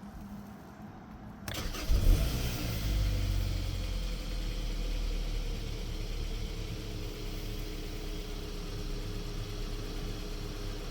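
2012 Kia Optima engine cranking briefly about a second and a half in, catching with a rise in revs, then settling into a steady idle. The car has an intermittent hard-start fault that the owner suspects is the starter or the high-pressure fuel pump; on this try it starts.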